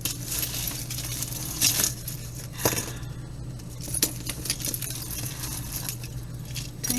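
Small metal jewelry pieces clinking and rattling as they are handled and picked apart by hand, in scattered light clicks over a steady low hum.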